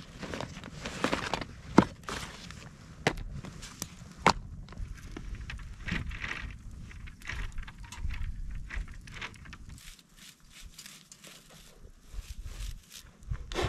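Camp cookware and a hanging pot chain being handled at a campfire: rustling, footsteps and several sharp metal clinks, the loudest about two and four seconds in, with the wood fire crackling.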